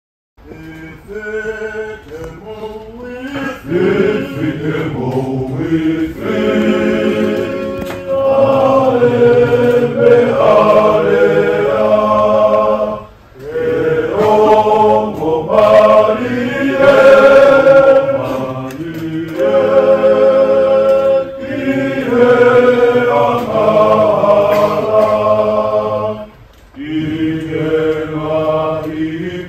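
A choir of voices singing in harmony, chant-like, swelling up over the first few seconds. It breaks off briefly about halfway through and again near the end.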